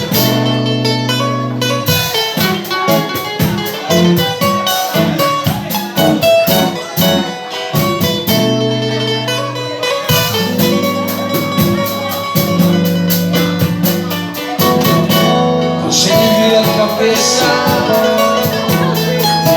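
Live band music: a guitar-led instrumental passage with a steady percussion beat, a voice singing again near the end.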